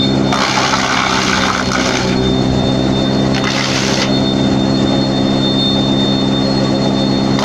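Wood crusher machine running with a steady motor hum and a high whine, with two louder stretches of rough grinding noise, about a third of a second in and again around three and a half seconds in.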